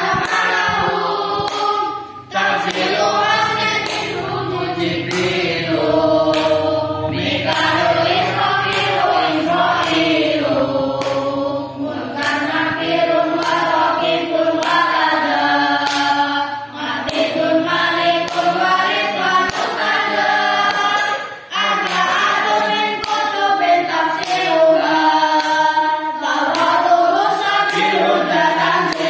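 A group of boys chanting Arabic nadhom verses together in the lalaran style, a sung group recitation. It runs on without a break except for two short pauses for breath, about two seconds in and again about two-thirds of the way through.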